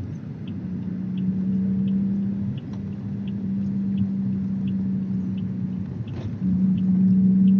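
A moving vehicle heard from inside: low road rumble under a steady engine drone that drops away briefly about six seconds in and comes back louder. Faint regular ticking, about one and a half ticks a second, runs under it.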